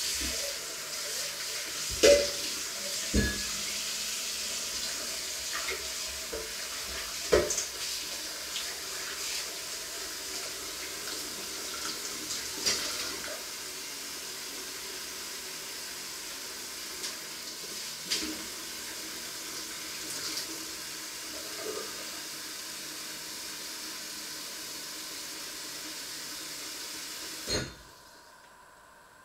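Kitchen tap running steadily into a sink, with a few short knocks and clinks, shut off abruptly near the end.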